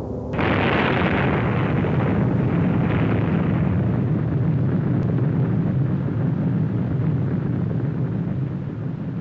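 Explosion: a sudden blast about a third of a second in, followed by a long low rumble that slowly fades.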